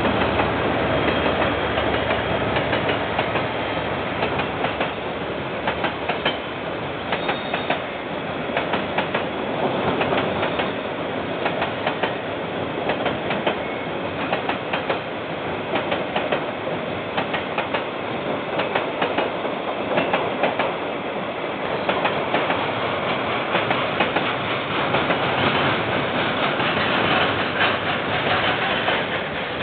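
KiwiRail freight train rolling past, a long run of container and tank wagons with the wheels clicking steadily over the rail joints.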